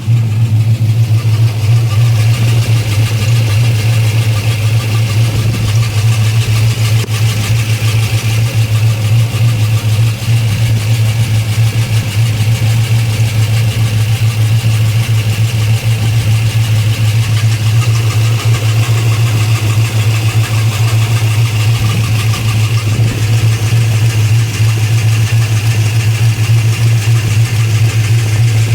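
Car engine idling steadily, making a noise that the owner takes for a dead misfire.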